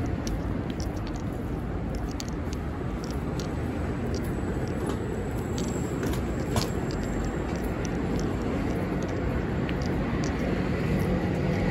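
Street traffic noise: a steady hum of cars on a city road, with scattered light clicks over it.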